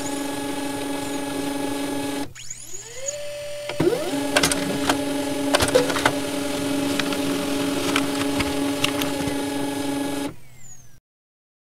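Synthesized logo-intro sound effect: a steady electronic hum with scattered clicks and glitchy streaks. It cuts out about two seconds in, swoops back up about four seconds in, and fades away near the end.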